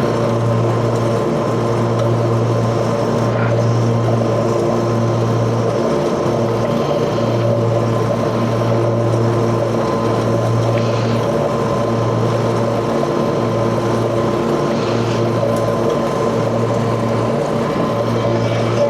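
Grasshopper front-mount mower's engine running steadily while mowing, a constant hum with a slight regular pulsing.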